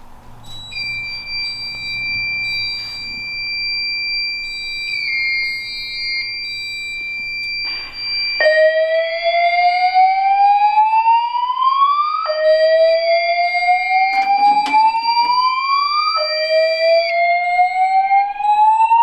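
Fire alarm voice-evacuation system sounding after a manual pull station is pulled. A steady high-pitched electronic tone starts about a second in. From about eight seconds in, a loud, slow rising whoop sweeps upward, repeating roughly every four seconds over the steady tone.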